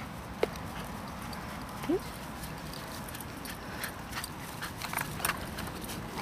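Labrador and flat-coated retriever puppy running over dry grass: scattered paw thuds and clicks, thickest as the puppy comes close near the end, with one short rising squeak about two seconds in.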